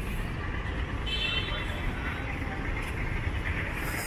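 Steady low rumble of road traffic and idling vehicles, with a brief high tone about a second in.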